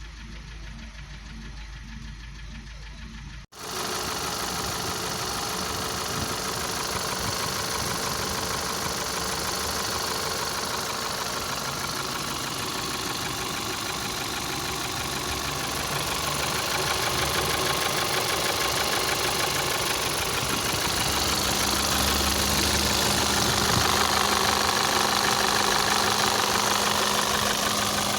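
Volkswagen Passat CC's 2.0 TSI turbocharged four-cylinder petrol engine (EA888, gen 1) running at idle with a rhythmic 'tah-tah-tah' knock, the sign of a failed piston: the teardown found the spark plug and piston of cylinder three destroyed. It is heard faintly at first, then much closer and louder after a sudden cut about three and a half seconds in.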